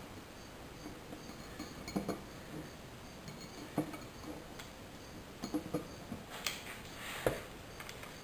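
Steel trimmer-pad plate being shifted and pressed into place by hand on an MDF board: a few scattered light clinks and knocks.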